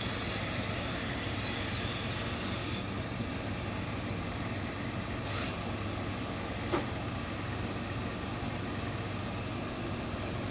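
Hose-fed industrial steam iron hissing as it releases steam onto the trouser cloth for about three seconds, then a short second burst about five seconds in. A click comes near seven seconds, over a steady low hum.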